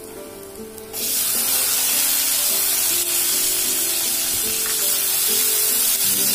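Chopped tomatoes tipped into hot oil and fried onions in a steel kadhai. A sudden loud sizzle sets off about a second in and keeps going while a spatula stirs them. Background music with a melody plays underneath.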